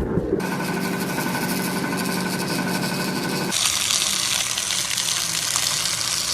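Machinery running with a steady hum and hiss, switching abruptly about three and a half seconds in to a louder, hissier machine noise.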